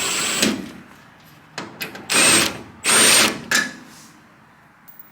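Power drill backing out a screw, running in several short bursts, the two longest a little over two and three seconds in, with a thin high motor whine.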